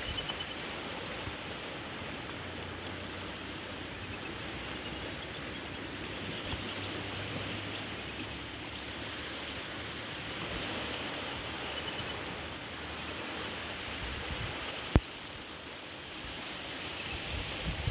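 Lake water washing steadily against the shore, with a single sharp click about fifteen seconds in.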